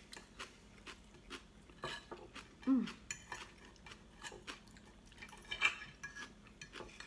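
Metal knives and forks clicking and scraping on ceramic dinner plates as sliced beef roast is cut and eaten, in scattered sharp clinks. A short hum of a voice, falling in pitch, a little before the middle.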